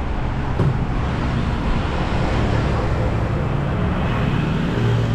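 Road traffic: a motor vehicle's engine running close by, a low hum that shifts in pitch, over a steady wash of road noise.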